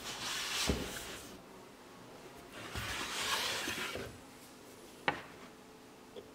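A gold-coloured metal trim strip slid and rubbed along a groove in a veneered wooden panel, giving two spells of scraping. There is a light knock near the start and a sharp click about five seconds in.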